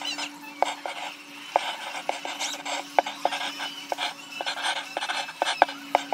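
Coloured pencil scratching across paper in quick strokes, with frequent sharp ticks as the lead catches and lifts, over a faint steady low hum.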